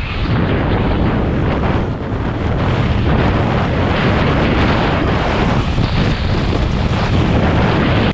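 Wind buffeting an action camera's microphone during a fast ski descent on a groomed piste, a loud steady rush mixed with the hiss and scrape of skis on firm snow.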